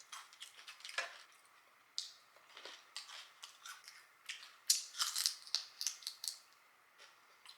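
Close-miked chewing and crunching of crispy fried chicken wings: irregular crackles and clicks, thickest about five seconds in.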